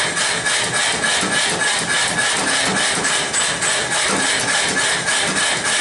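Power hammer striking a red-hot steel bar in rapid, steady, even blows, with a steady high whine from the machine underneath.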